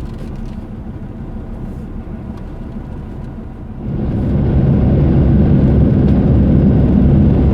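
Car driving along the road: steady engine and tyre noise, which gets noticeably louder about four seconds in.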